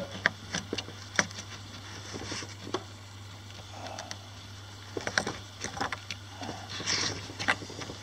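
Scattered light clicks, taps and scrapes of a metal toggle switch being pushed through a drilled hole in a boat's console panel and fitted from behind, over a steady low hum. The clicks grow more frequent in the second half.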